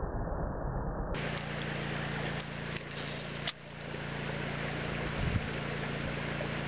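Steady rushing noise, like wind on the microphone, over a low, steady hum.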